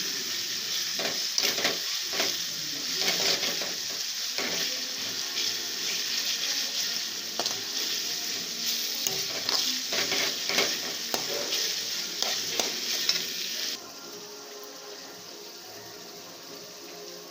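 Prawns sizzling in hot oil in a pan, stirred with frequent clinks and scrapes of a utensil against the pan. The sizzle cuts off suddenly about three quarters of the way through, leaving a much quieter sound.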